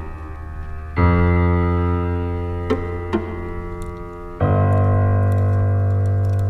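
Background music: held keyboard chords that change about a second in and again a little past four seconds.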